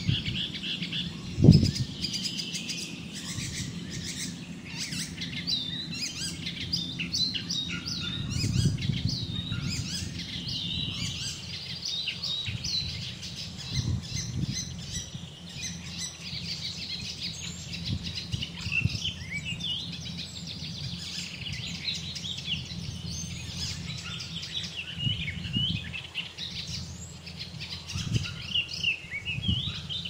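A dense chorus of many small birds chirping and singing. Underneath runs a low rumble with a few dull thumps, the loudest about a second and a half in.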